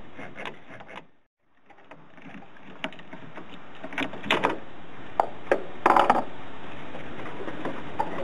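Sharp metal clicks and clinks of a big socket on a half-inch ratchet working the radiator's transmission cooler line fitting, spaced out at first, with a quick run of several clicks about six seconds in.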